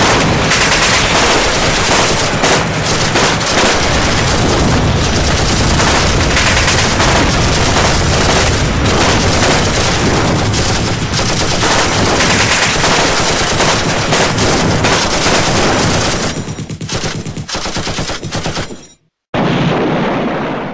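Dense automatic gunfire, many guns firing at once in a continuous fusillade. It thins out and dies away near the end, then a brief loud stretch cuts off abruptly.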